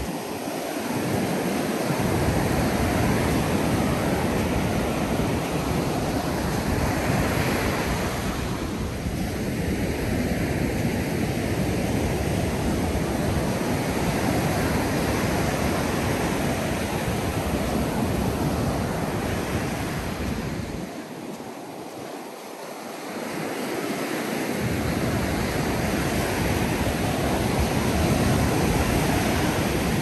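Ocean surf breaking and washing on a beach, with wind rumbling on the microphone. The wind rumble drops away briefly near the start and again for a few seconds about two-thirds of the way through, when the whole sound dips a little.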